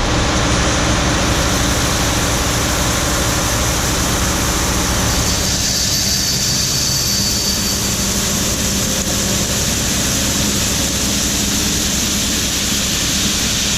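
Combine running alongside a semi trailer while its unloading auger pours shelled corn into the trailer: a steady engine hum under a loud, even rush of grain.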